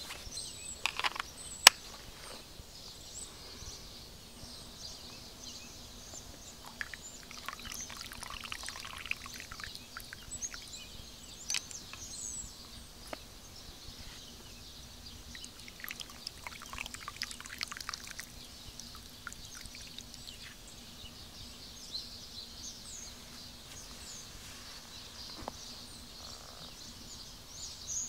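Woodland songbirds chirping and calling throughout, with one sharp knock a couple of seconds in and a few brief patches of rustling noise.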